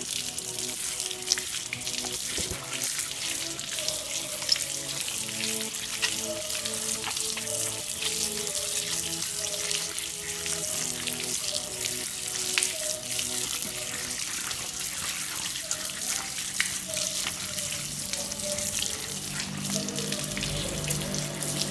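Water running or spraying with a steady hiss and crackle, over background music with a simple melody.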